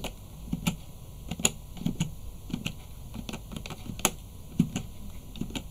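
Computer keyboard keys typed one at a time, entering a string of digits: irregular clicks, about two to three a second.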